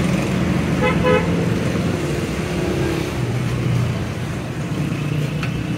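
Motor traffic running steadily, with a vehicle horn giving two short toots about a second in.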